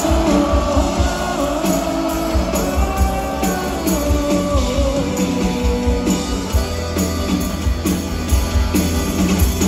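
Norteño band playing live through a concert sound system: accordion, guitars, bass and drums with a steady beat, heard from within the crowd.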